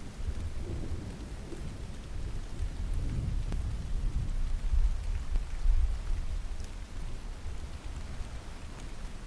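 Steady rain with a low rumble of distant thunder that swells through the middle and fades away near the end.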